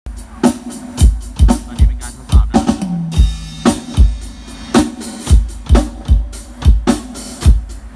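Drum kit played live and amplified through the loudspeakers of a Thai khrueang hae mobile sound cart during a sound check: kick and snare strokes at about two a second, with a cymbal crash and a short low ringing note about three seconds in.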